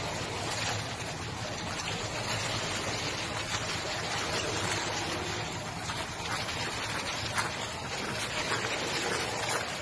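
Pool water splashing and lapping steadily around a small dog paddling, with a few small sharp splashes.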